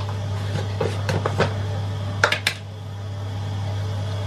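Light clinks and taps of kitchenware over a steady low hum: a few soft ones about a second in, then three sharp clicks a little over two seconds in.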